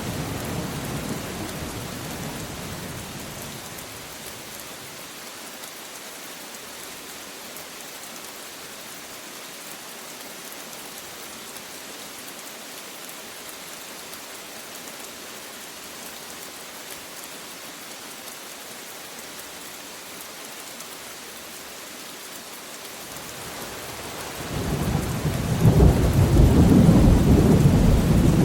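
Steady rain falling during a thunderstorm. A low thunder rumble fades out over the first few seconds, and near the end a loud rumble of thunder builds up and rolls on.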